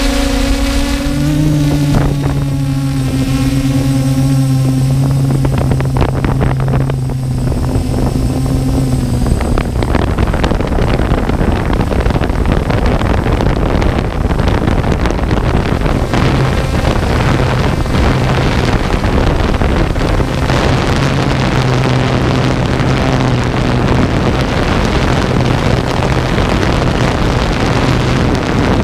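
DJI F550 hexacopter's six motors and propellers buzzing in flight. Their steady hum steps up in pitch about a second in, then is largely buried under wind rushing over the on-board GoPro microphone from about ten seconds on.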